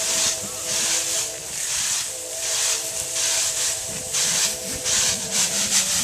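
Rice grain swishing in a round bamboo winnowing tray as it is shaken, a hissing swish about twice a second that quickens near the end. A fainter steady hum of several tones runs underneath.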